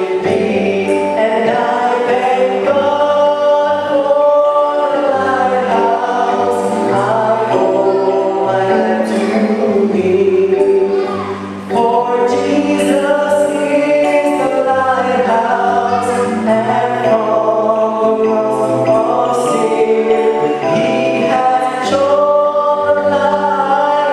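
A choir singing a gospel hymn in harmony, with a bass line underneath; the singing dips briefly about halfway through.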